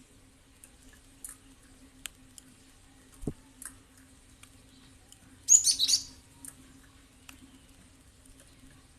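Cinereous tit (gelatik batu) giving a short burst of high calls lasting about half a second just past the middle, among scattered faint high chirps and ticks. A single low knock comes a little earlier, over a faint steady hum.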